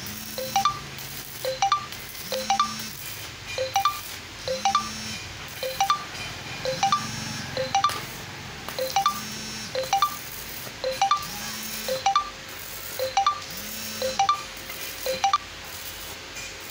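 Background music: a bell-like, chiming melody with notes about twice a second over a low held note that returns about every two seconds.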